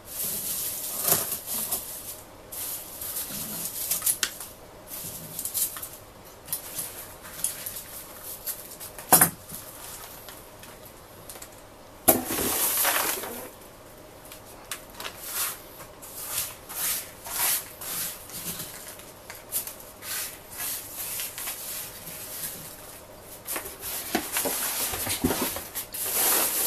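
Scissors cutting dry lemongrass stalks and the cut grass rustling as it is handled, first on a plastic cutting board and later in a cardboard box. Many short crisp snips and rustles, with a sharp click about nine seconds in and a longer, louder rustle a few seconds later.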